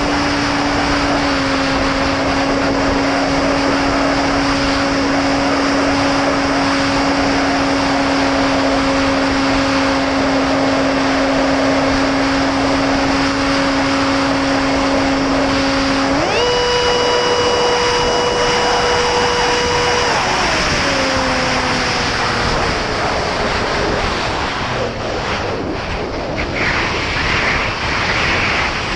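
Electric motor and propeller of an 8S-powered FPV flying wing running at a steady whine with air rushing past. About 16 seconds in it is throttled up sharply to a much higher pitch, held for a few seconds, then throttled back with the pitch sliding down. Wind buffets the onboard microphone near the end.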